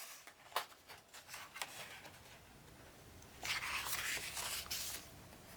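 Paper rustling and a few light clicks as a picture book's pages are handled, with a longer rustle of paper from about three and a half seconds in, most likely a page being turned.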